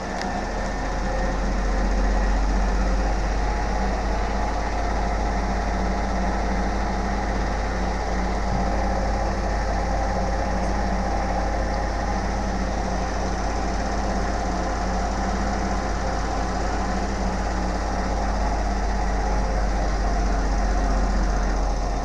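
Gorenje WEI823 inverter washing machine spinning its drum at high speed on a 1000 rpm spin cycle: a steady, loud, low hum with a few constant tones over it, swelling slightly in the first couple of seconds and then holding level.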